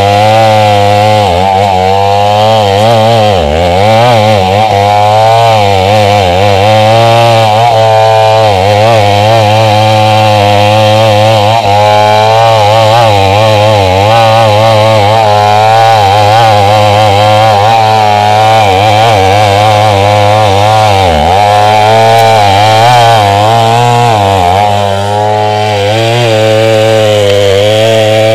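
Stihl 070 two-stroke chainsaw running loudly and without a break, its engine pitch dipping and rising over and over.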